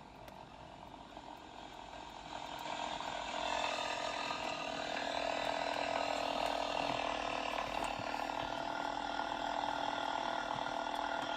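Playback of a recording of a stock Mk3 Ford Focus RS's 2.3-litre turbo four-cylinder exhaust idling as the car warms up, heard thin and buzzy through a small speaker. It grows louder about two to three seconds in, then holds steady.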